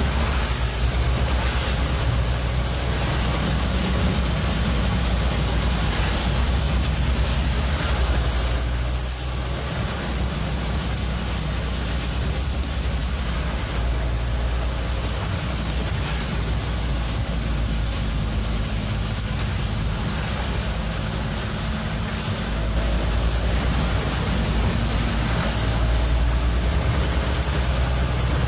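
Truck on the road in the rain: a steady diesel engine drone under road and rain noise, with a high thin whistle that comes and goes several times.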